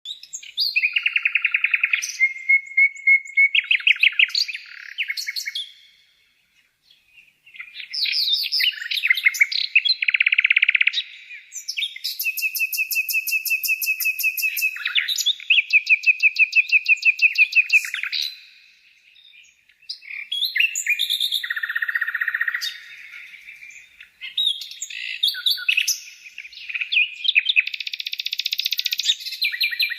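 Songbird singing a varied, high-pitched song of trills and rapid repeated notes in long phrases, with short pauses about six and nineteen seconds in.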